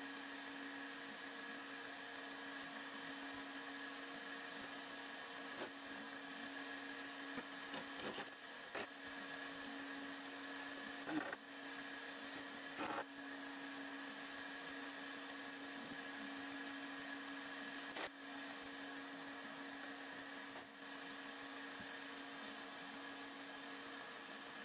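A steady mechanical hum with a few steady tones in it, like a workshop machine running. A few light knocks and clicks are scattered through it, the sharpest about eleven seconds in.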